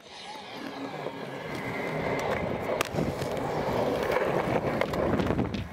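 Skateboard wheels rolling on concrete, fading in and growing louder, with a few sharp clacks of the board.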